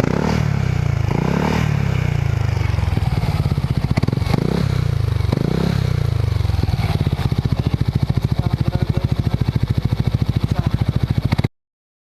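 Yamaha NMAX scooter's single-cylinder engine running through an Exos X6 aftermarket power-pipe exhaust. It is blipped four times in quick succession over the first six seconds, then idles with an even, pulsing exhaust note until it cuts off suddenly near the end.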